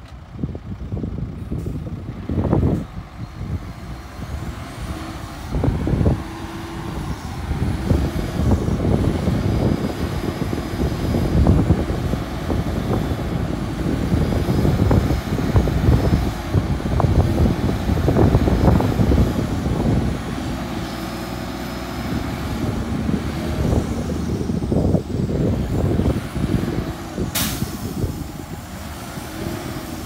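Heavy diesel dump truck engine running and revving unevenly as the truck manoeuvres and its hydraulic hoist raises the loaded tipper bed. A short, sharp hiss of air comes near the end.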